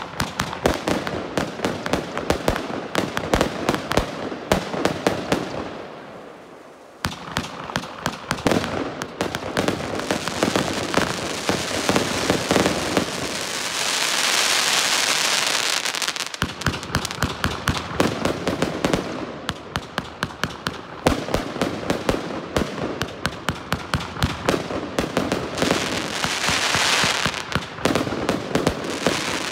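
Pyrania 144-shot consumer firework battery firing: a rapid, continuous run of launch pops and aerial bursts, with a short lull about six seconds in and a steadier hissing stretch about halfway through.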